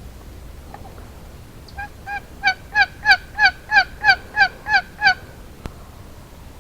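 A series of about eleven wild turkey yelps, about three a second, building in loudness over the first few notes and then holding steady.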